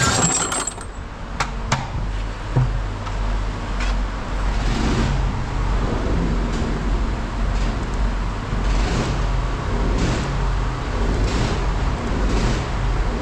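Steady low hum of a running vehicle engine, with two sharp clicks a little over a second in and soft swells of noise recurring about once a second later on.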